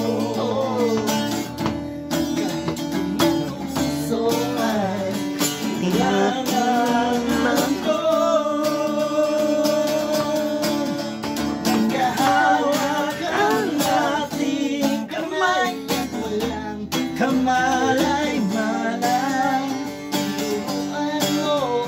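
Acoustic guitar strummed under a voice singing a song, with some long held notes near the middle.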